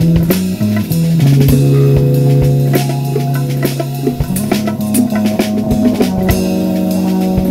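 Live instrumental funk groove from an electric guitar, electric bass and drum kit, with a steady drum beat under long held low notes that step up in pitch about four seconds in.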